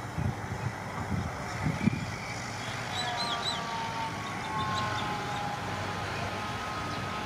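Komatsu D20A crawler bulldozer's diesel engine running at a distance as it pushes soil, with a faint whine that wavers in pitch. Irregular low thumps sound in the first two seconds, and a few faint high chirps about three seconds in.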